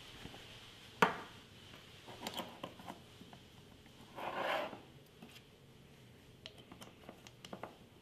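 Small glass tincture bottles handled on a countertop: a sharp knock about a second in, then scattered light clicks and taps of glass and caps, with a brief rustle a little past the middle.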